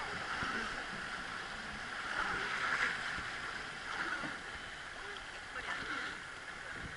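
River water rushing and splashing along the hull and side oar of a wooden boat running through rapids, a steady rush, with people's voices faint underneath.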